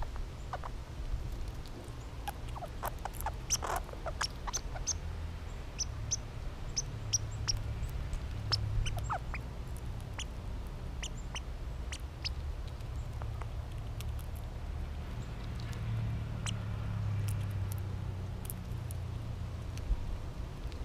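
American red squirrel eating seeds: irregular sharp crunching clicks as it bites through the shells, thick in the first half and sparser later, over a low steady rumble.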